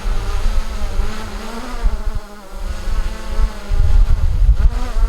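DJI quadcopter drone hovering close by: the buzzing whine of its propellers, its pitch wavering slightly, over a gusty rumble of the rotor downwash blowing on the microphone. The rumble eases off briefly about two seconds in.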